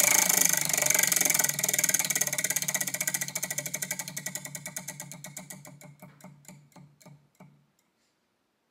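A spun prompt wheel clicking against its pointer. The clicks are rapid at first, then slow down and grow fainter until the wheel comes to rest about seven and a half seconds in.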